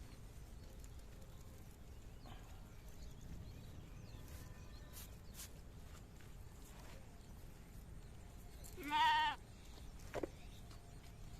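A single wavering bleat from a goat or sheep about nine seconds in, over a low steady outdoor background, followed by a short knock about a second later.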